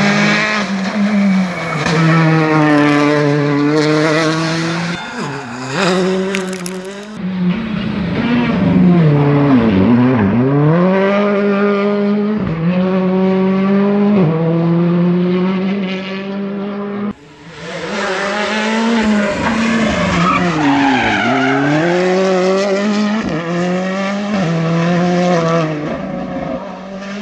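Rally cars driven flat out, their turbocharged four-cylinder engines revving high, dropping sharply at each gear change or lift and climbing again, with tyres skidding through the corners. The sound cuts abruptly from one car to another twice.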